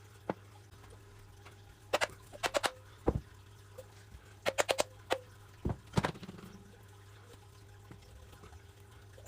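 Scattered sharp clicks and light knocks, some in quick runs of three or four, from small parts and tools being handled while a motorcycle's clutch master and slave cylinders are stripped down.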